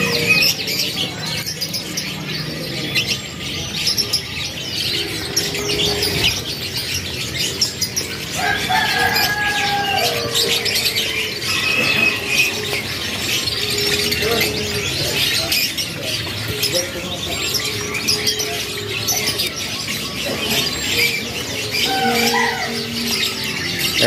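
A crowd of caged canaries chirping and twittering together without a break, with some wing flutter among the birds.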